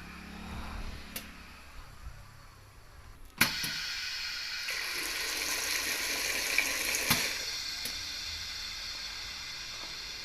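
Liquid filling machine dispensing a shot in semi-automatic mode: a sharp click a third of the way in as the cycle is triggered, then a steady rushing, hissing pour from the filling nozzle for about seven seconds.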